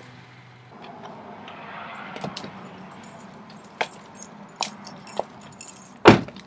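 A low engine hum cuts off under a second in, then high-heeled shoes click on concrete as a driver steps out of a Honda Civic. The car door shuts with a loud thud about six seconds in.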